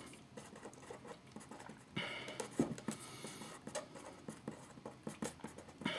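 Marker pen writing on paper: a series of short, faint scratching strokes as words are written out.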